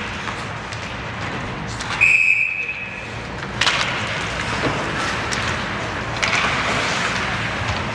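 Referee's whistle blown once, a single high steady tone lasting about a second, over the background noise of an ice hockey rink.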